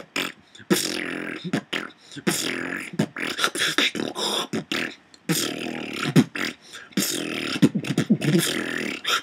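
A beatboxer performs a short routine built on a long exhaled sound made with the tongue pressed to the roof of the mouth. Buzzy held notes, each about a second long, alternate with sharp percussive clicks.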